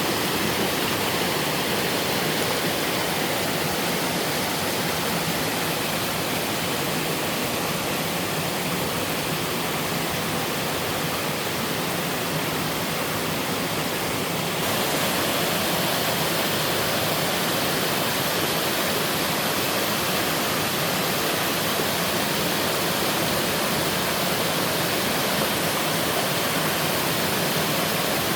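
Mountain waterfall pouring and splashing into its pool, a steady dense rush of water. About halfway through the sound shifts and gets slightly louder.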